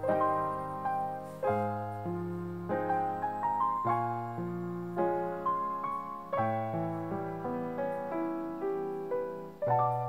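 Background solo piano music: a gentle melody of single notes over held low bass notes.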